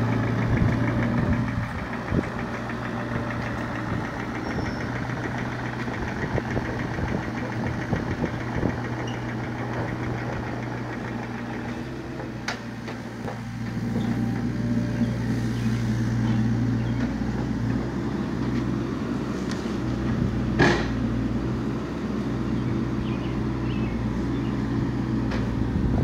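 A mini excavator's diesel engine running steadily, getting louder about halfway through, with two short sharp clicks.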